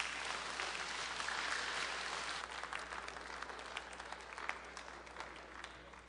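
Audience applauding, the clapping strongest about a second and a half in and thinning out toward the end.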